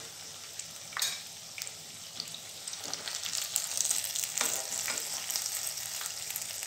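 Potato cheese balls deep-frying in hot oil, a steady sizzling and crackling. A few light knocks come as a slotted spoon lifts the fried balls out of the pan.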